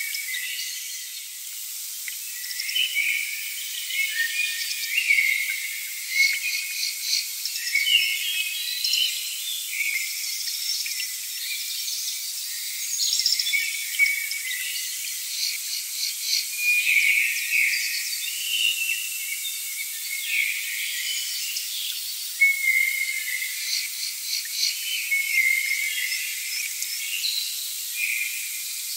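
Insects chirping and trilling in quick pulsed bursts, with short high chirps, all high-pitched with no low sound beneath.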